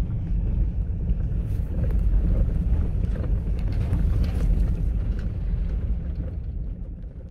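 Inside an SUV driving on a rough gravel and mud track: a steady low rumble of engine and tyres, with scattered light knocks and rattles from the bumpy road. The sound fades out near the end.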